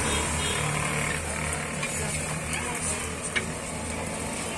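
Bhatura deep-frying in a karahi of hot oil, sizzling steadily as a perforated skimmer presses it down, with a light click or two from the skimmer about three seconds in. A steady low rumble runs underneath.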